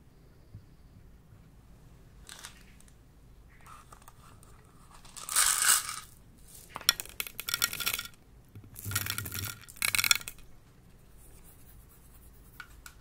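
Small plastic pearl beads poured and scattered into a glass dish, landing in four bursts of rattling clicks in the middle of the stretch.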